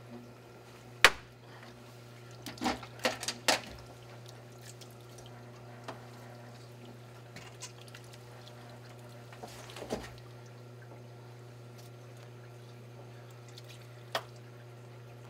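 Water dripping and trickling from the freshly cut bleeder hose on a hot tub pump, a leak that means the slice valves are not fully holding. A sharp click about a second in, a few knocks around three seconds in and another click near the end come from handling the fittings.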